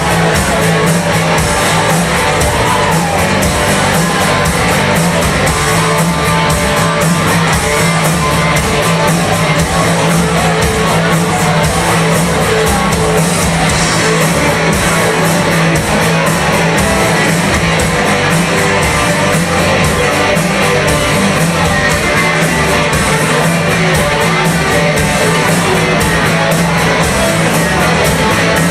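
Live rock band playing loud, guitar-led music with a steady beat.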